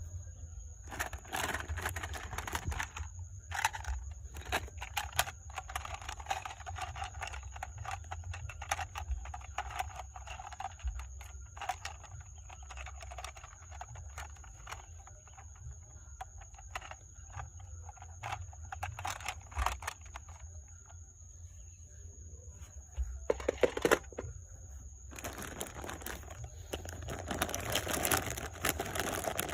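Rustling and scattered small clicks and knocks of objects being handled, over a steady faint high-pitched whine and a low hum. There is a louder cluster of knocks about 24 seconds in, and the rustling grows denser near the end.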